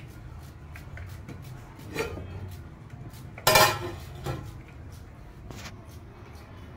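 Knife slicing onion on a steel plate: a run of light clicks and taps as the blade meets the plate, with one louder clank about three and a half seconds in.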